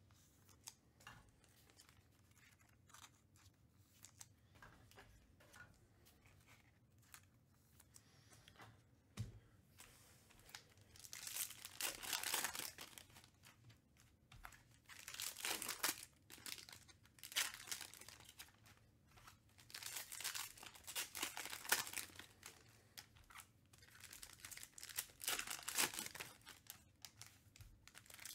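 Foil trading-card packs (2021 Panini Mosaic Football) torn open by hand, with the wrappers crinkled, in repeated bursts every few seconds from about ten seconds in. The first part holds only faint clicks of cards being handled.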